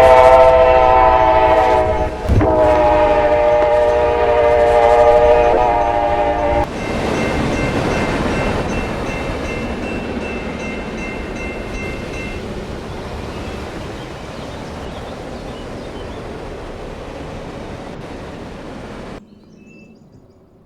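A loud chord-like horn sounds twice, the second blast longer, followed by a rushing noise that slowly fades and then cuts off abruptly.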